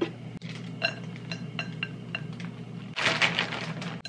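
A run of small, evenly spaced clinks of a spoon and toppings against a ceramic bowl as a thick smoothie bowl is plated, then about a second of rattling hiss as shredded coconut is shaken from a small glass jar over it, over a steady low hum.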